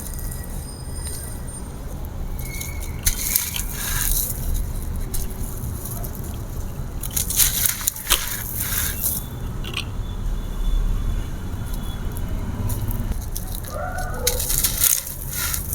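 Dry grey concrete slab pieces crumbling, with three bursts of crackling and crunching a few seconds apart over a steady low background rumble.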